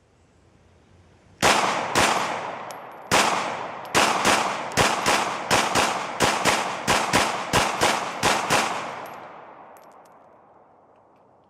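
A string of 9mm pistol shots from a Glock 19X: two shots about half a second apart, then after a short pause a fast run of about fifteen shots at roughly three a second, each followed by a ringing echo that fades away after the last shot.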